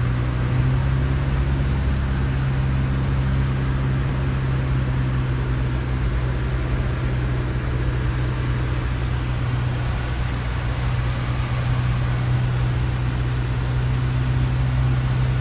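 Single-engine light aircraft's piston engine and propeller heard from inside the cockpit: a steady drone at an unchanging pitch with rushing air, through the landing and rollout.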